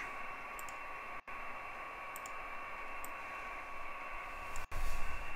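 Amateur radio receiver audio playing through the DSP: steady band hiss cut off above about 3 kHz, with a faint steady whistle running through it. The audio drops out briefly twice, and a few computer mouse clicks sound over it.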